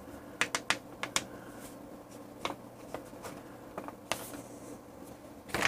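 Paper and a pen being handled on a bench: scattered light clicks and rustles, a little louder near the end.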